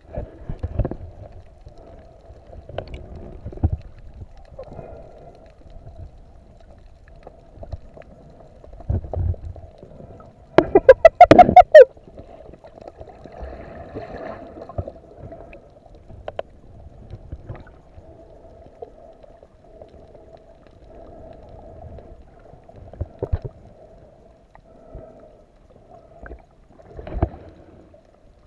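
Muffled underwater sound through a sealed camera housing while snorkeling: low thumps and swishes of water from fin kicks over a faint steady hum. About eleven seconds in, a loud burst of rushing water and bubbles.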